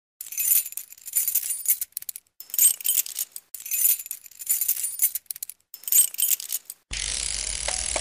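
Intro sound effect: several bursts of high, jingling metallic shimmer. About seven seconds in, a steady, fuller music-like sound with a few held tones starts.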